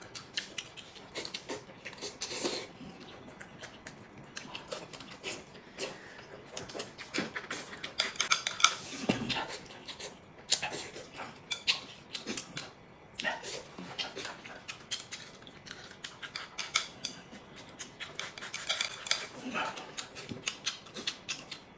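A person eating noodles and rice from a bowl with chopsticks: many small, irregular clicks and taps of the chopsticks against the bowl, mixed with mouth sounds of eating.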